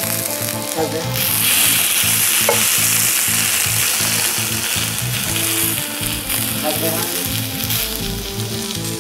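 Pancakes and sausages frying in an oiled pan, a steady sizzle that grows louder about a second in. Background music plays underneath.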